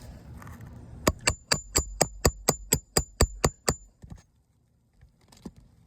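Hammer driving a nail with about a dozen quick, even strikes, roughly four a second, each with a high metallic ring. The strikes stop about four seconds in.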